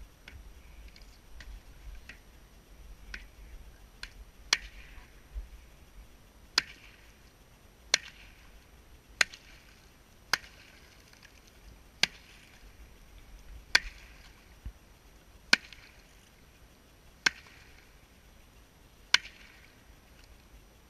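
A wooden stick striking thin pond ice again and again: about a dozen sharp cracks, roughly one every one and a half to two seconds, each with a brief splash. The first few strikes are lighter and the rest are louder.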